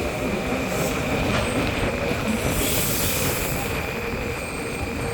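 Train running on rails: a low rumble with a steady high-pitched wheel squeal that stops near the end, and a brief hiss about midway.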